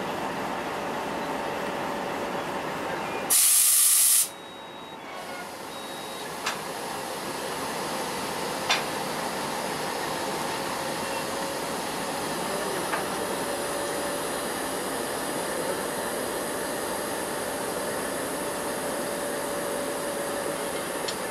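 A loud hiss of air rushing from a railway wagon's brake hose, lasting about a second and cutting off suddenly, as the brake pipe between two wagons is uncoupled. Afterwards a steady engine hum continues, with a few light metallic clicks.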